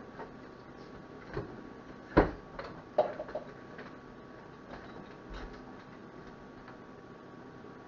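A kitchen knife knocking and tapping on a plastic cutting board while an onion is cut: a few irregular knocks, the loudest about two seconds in, with lighter clicks in between.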